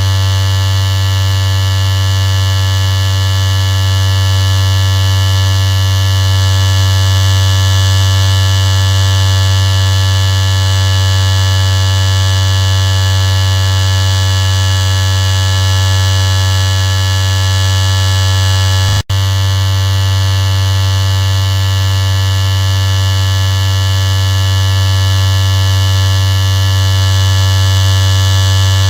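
Electric shaver running with a steady, loud low buzz and a hissy top. It cuts out for a split second about two-thirds of the way through, then carries on unchanged.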